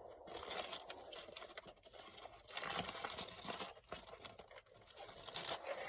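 Paper burger wrapper crinkling and rustling in irregular bursts as the burger is handled and unwrapped.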